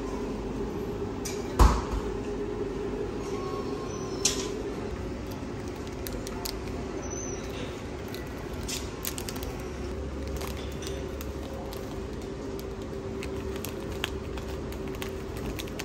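Room tone with a steady low hum, broken by scattered light clicks and clinks, a sharp knock about a second and a half in, and a smaller one about four seconds in.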